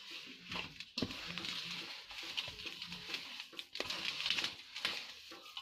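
Hand rubbing and mixing a dry, crumbly mixture of ground flaxseed, sugar and mawa in a bowl: a rustling, scraping sound with small irregular clicks, and a sharper click about a second in and again near four seconds.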